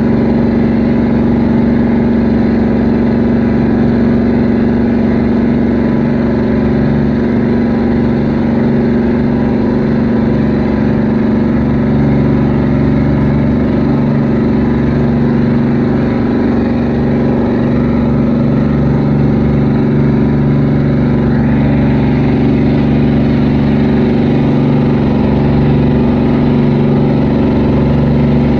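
Boat engine running steadily, a loud low drone that does not change pitch.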